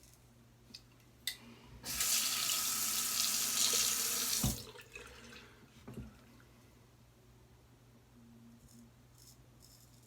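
Bathroom sink tap turned on and running for about three seconds before being shut off, with a sharp click just before and a couple of small knocks after.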